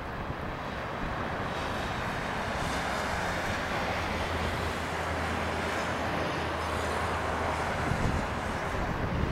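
Jet noise from a Boeing 737-300's CFM56-3 turbofan engines at climb power as the airliner climbs away after takeoff: a steady rushing noise with a low hum under it.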